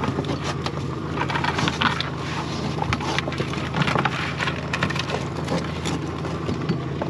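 Irregular clicking, scraping and rattling from a crab pot being handled while a mud crab is taken out of it, over the low, steady hum of an idling boat motor.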